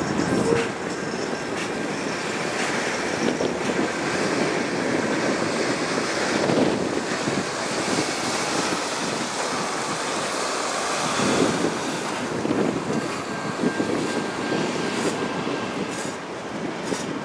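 Freight train of covered hopper cars rolling past: a steady rumble and rattle of steel wheels on the rails, with a few sharp clanks.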